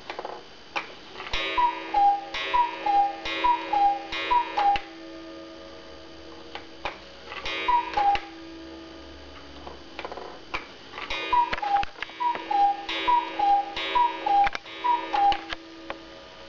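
Black Forest mechanical cuckoo clock striking: the two wooden bellows whistles sound the falling two-note "cu-ckoo" call together with ringing gong strikes. There is a run of about five calls, a single call a few seconds later, then another run of about five, with the clock's ticking and mechanism clicks between.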